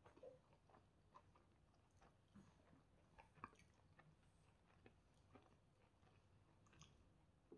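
Faint, scattered crackles and clicks of a person chewing and biting into chicken shawarma wrapped in pita bread.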